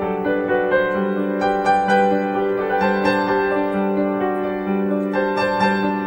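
Background piano music, a melody of sustained notes struck one after another.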